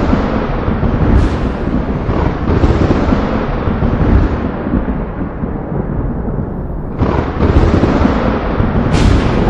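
Thunder rumbling continuously, with sharp cracks about a second in, near seven seconds and again near the end, each fading into a long low rumble.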